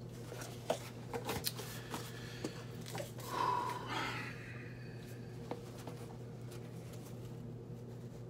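Gloved hands handling a cardboard box and its foam insert: light rustling and scattered small clicks, with a brief louder rub about three and a half seconds in. A steady low electrical hum runs underneath.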